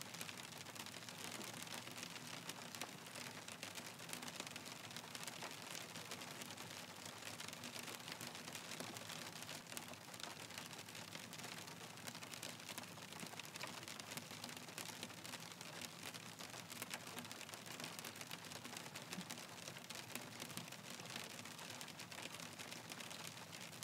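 Hail falling: a dense, continuous stream of small hard ticks as hailstones strike a surface, over a hiss of falling precipitation.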